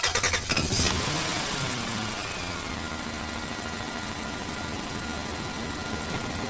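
Steady low engine hum, with a brief clatter of knocks in the first second.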